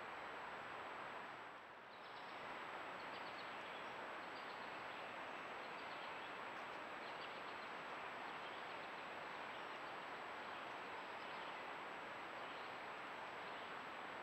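Trail camera's own field recording of summer woodland: a steady low hiss with faint high chirps scattered through it and a thin steady high tone. The hiss dips briefly about two seconds in.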